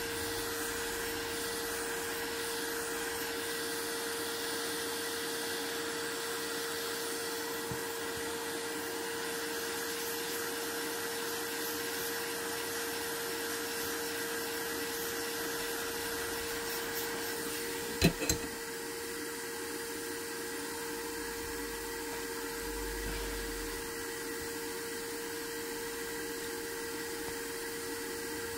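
A steady electric whir with a constant hum, as from a small blower or fan motor running, softening slightly after a sharp double click about 18 seconds in.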